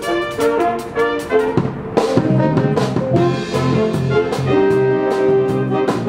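Youth jazz band playing a big-band chart: a horn section holding chords over a drum kit with a steady cymbal beat. Low brass and bass join in fuller about a second and a half in.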